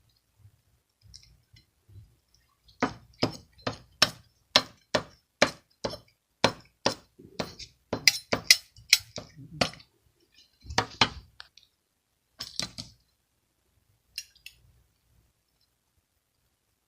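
A run of about fifteen sharp clinks of hard objects, roughly two a second, followed by a few scattered clinks.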